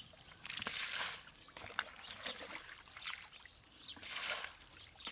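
Muddy water splashing and pouring as a bucket scoops it up and throws it out of a shallow pool. The two biggest splashes come about half a second in and about four seconds in, with smaller splashes between.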